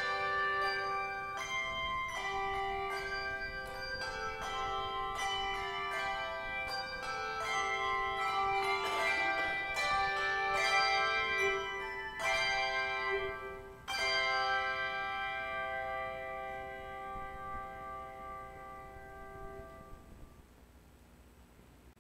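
Handbell choir ringing a series of struck chords; a final chord struck about two-thirds of the way through rings on and fades away.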